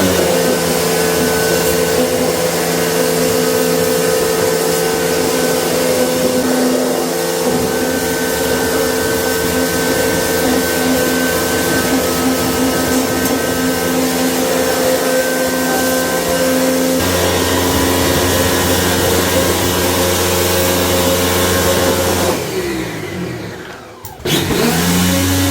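A loud electric motor-driven machine running steadily with a droning hum and whine. Near the end it winds down with falling pitch, then starts up again.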